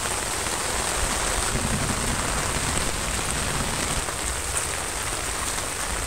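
Rain falling steadily, an even hiss of drops with no break.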